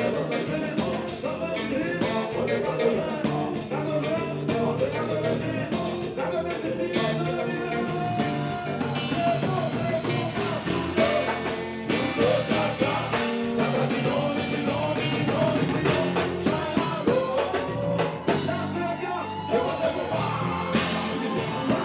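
Live band music with a male lead singer singing over drums, guitar and keyboards.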